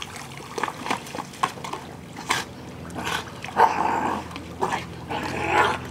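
A dog giving short, excited whining cries while swimming, with light splashing of water.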